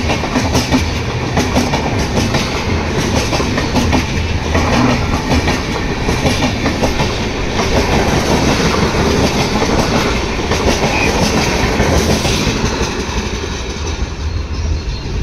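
Passenger coaches of an Indian Railways express rolling past close by, their wheels clattering over the rail joints in a steady run of clicks. The sound eases a little near the end as the last coach draws away.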